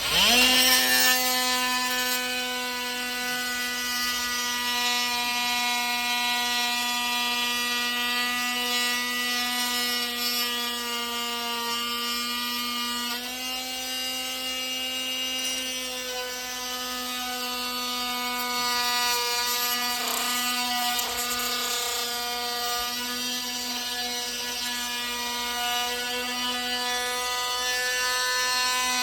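Oscillating multi-tool running and cutting, trimming the lip off a golf cart charging receptacle: one steady high whine that starts at once and shifts slightly in pitch about halfway through.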